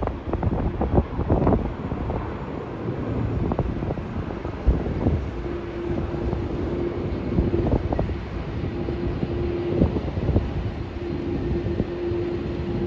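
Wind buffeting the microphone in irregular gusts over a low rumble, with a steady hum joining about five seconds in.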